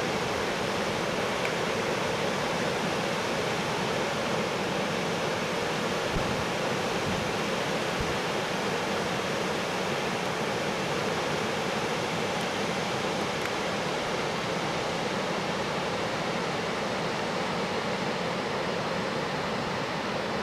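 Muddy floodwater rushing through a desert wash, a steady, even rushing noise.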